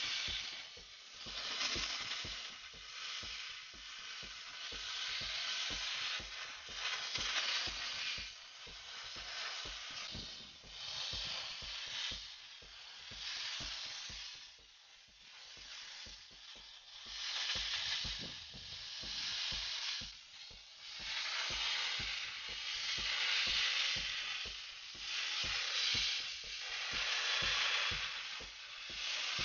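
Steam jet from a Wagner 915 hand-held steamer hissing as it is sprayed over engine parts, swelling and easing every couple of seconds as the spray is triggered and moved.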